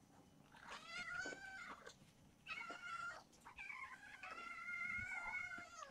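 Hungry kittens meowing for food: a string of high-pitched meows, the last one long and drawn out, lasting about two seconds near the end.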